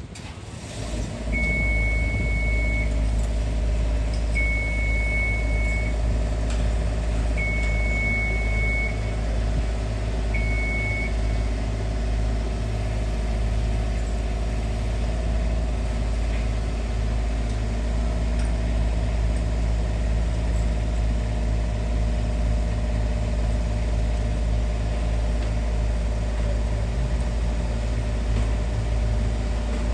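A heavy vehicle engine running steadily, with a warning alarm giving four long, high beeps about three seconds apart, stopping after about eleven seconds.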